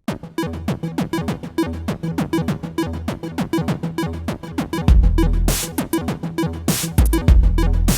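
Electronic background music with a fast drum-machine beat, synthesizer and bass, starting abruptly.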